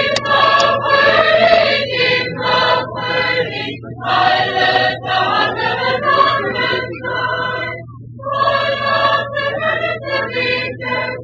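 A choir singing in sustained phrases, with a brief pause about four seconds in and a clear break about eight seconds in, over a steady low hum.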